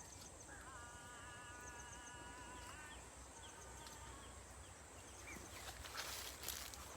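Quiet outdoor ambience: faint bird chirps, and a sustained wavering tone lasting about two seconds, starting about half a second in. Brief rustling comes near the end.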